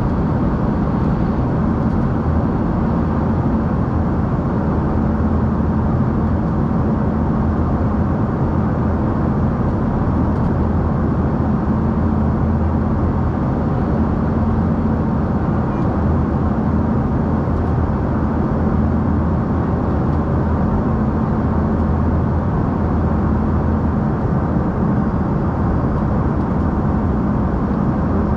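Steady, unbroken noise of an Embraer ERJ-145's two Rolls-Royce AE 3007 turbofan engines and rushing air, heard from inside the aircraft in flight, with a low hum running under it.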